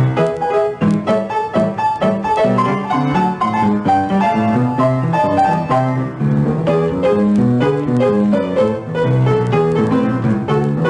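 Background music: piano playing a quick run of notes.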